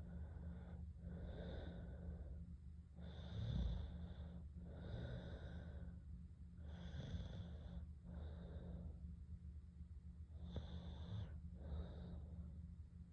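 Soft snoring in sleep: slow, noisy breaths in and out, one every second and a half or so, over a steady low hum.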